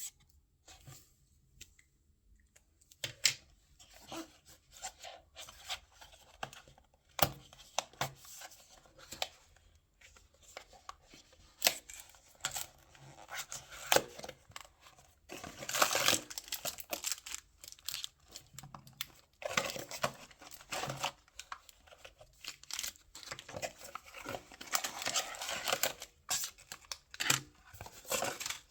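Blind-box toy packaging being torn open and handled: tearing and crinkling of wrapping, broken by sharp clicks and taps, with the longest stretches of rustling about halfway through and again near the end.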